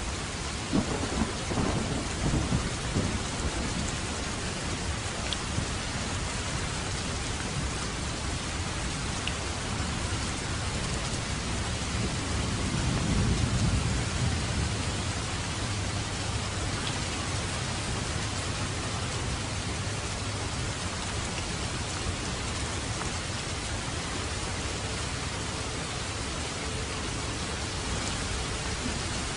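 Steady heavy rain with thunder: low rumbles about a second in and again a few seconds later, and a longer rolling rumble that swells and fades near the middle.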